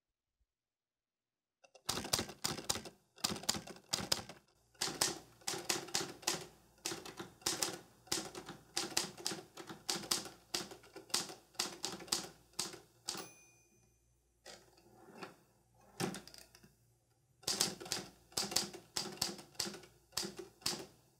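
Manual typewriter keys clacking in quick runs of keystrokes, starting about two seconds in. About halfway through there is a short ringing tone, then a pause with a few scattered strokes before the typing picks up again.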